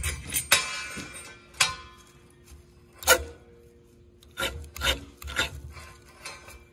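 Ferro rod scraped hard with a steel striker over wood-shaving tinder: about six short rasping strikes, a second or so apart, that are not throwing enough sparks to light it.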